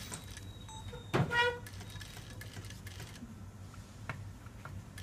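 Juki industrial sewing machine working in short spells: a steady low motor hum with scattered mechanical clicks. A brief high-pitched tone about a second in stands out above it.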